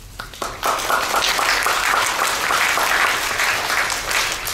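Audience applauding: many hands clapping, building up within the first second and dying away near the end.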